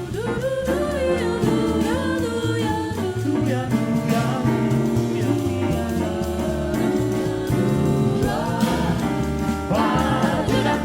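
A vocal group singing in harmony over a jazz band with bass and drums.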